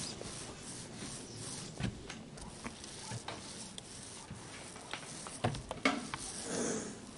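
Paint rollers on long poles spreading glue over OSB roof decking: a soft, uneven rubbing with a few scattered small clicks.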